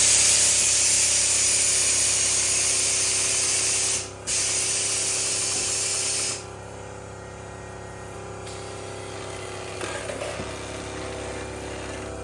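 A loud spraying hiss in two stretches, about four seconds and then about two, breaking off briefly in between and stopping about six seconds in. A steady low hum carries on under it and after it.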